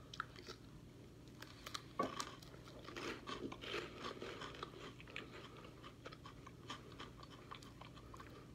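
Faint crunching of puffed cheese-flavoured snack rings being bitten and chewed, with the texture of a Funyun. One crisp bite comes about two seconds in, then a quick run of small chewing crunches that thins out toward the end.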